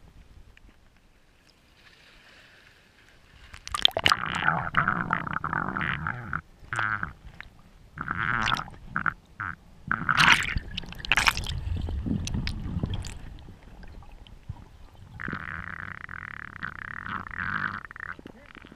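Water sloshing and bubbling around an underwater camera housing, with knocks and clicks against it, heard muffled as from below the surface. It starts a few seconds in, is irregular and loud for about ten seconds, then turns into a steadier hiss of bubbles near the end.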